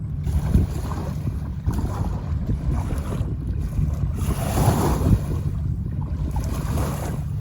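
Jamuna river waves washing against the bank, with wind buffeting the microphone in a steady low rumble.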